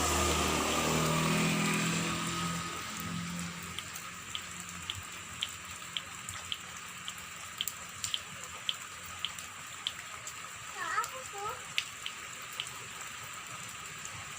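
Steady rain falling, with drops plinking sharply at about two a second. A low hum fades out over the first few seconds, and a brief wavering high-pitched call comes about eleven seconds in.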